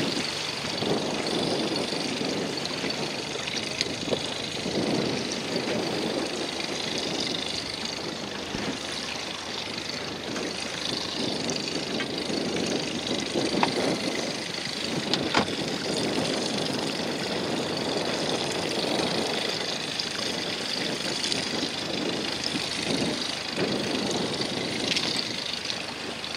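A small boat's motor running steadily under a rushing wind-and-water noise that swells and fades every few seconds, with a few sharp knocks.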